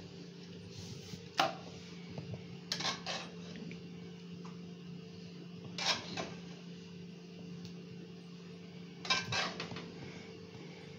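Metal spoon scraping and clinking against an aluminium pot and a plate while thick porridge is ladled out, in short bursts every few seconds. A steady low hum runs underneath.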